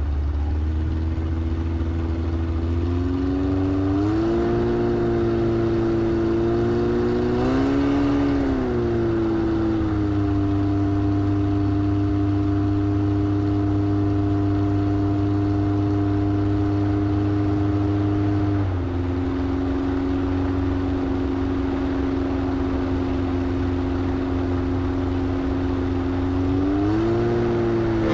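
A light high-wing STOL bush plane's propeller engine runs steadily. Its pitch steps up a few seconds in, rises and falls back in a short rev about a third of the way through, holds level, drops about two-thirds through, and climbs again near the end.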